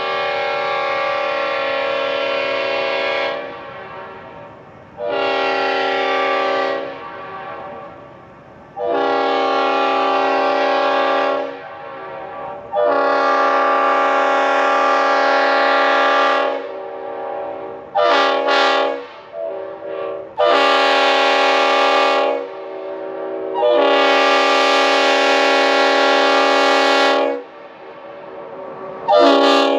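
Leslie RS5TF five-chime locomotive air horn with full-orifice bells, two of them in a reversal, blown in a series of loud, steady chord blasts. About six long blasts of two to four seconds are broken by gaps, with a few quick toots in the middle and a short one at the end.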